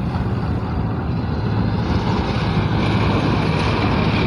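HGMU-30 diesel locomotive approaching at speed, its engine running with a steady low hum over continuous rumbling noise, growing slightly louder.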